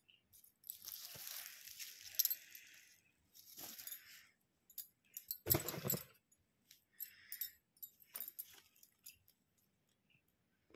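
Paper rustling and crinkling as a handmade paper gajra is handled on a sheet, in irregular bursts. A louder brushing knock comes about halfway through, followed by scattered light clicks.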